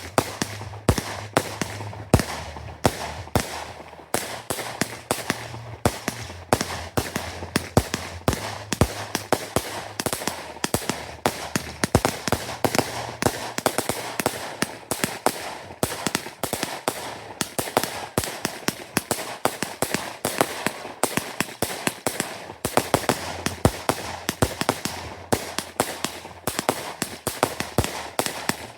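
Fireworks going off: a rapid, irregular string of sharp bangs and crackles, several reports a second, with crackling in between.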